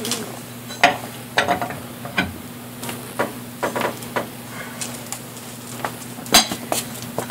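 Irregular metallic clicks, knocks and scrapes from a lug wrench being fitted to and worked on a car wheel's lug nuts. A steady low hum runs underneath.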